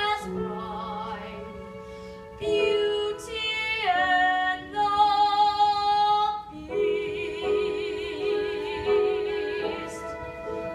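Musical-theatre singing: a female voice holding a few long notes with vibrato over musical accompaniment, the last note wavering most.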